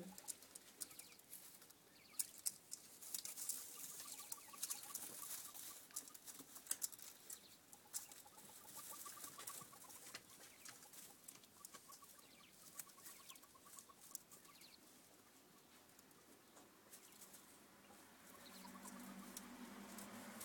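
Japanese quails pecking feed from a ceramic bowl: irregular sharp clicks of beaks on the bowl and in the straw, with soft trilling calls every few seconds.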